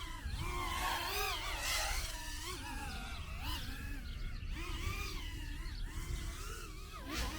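Micro FPV racing quadcopter's brushless motors whining, their pitch rising and falling continually as the throttle changes. Near the end the pitch drops sharply and climbs back.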